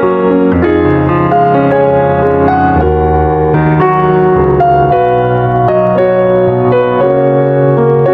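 Slow piano music: held notes and chords over low bass notes, changing about once a second.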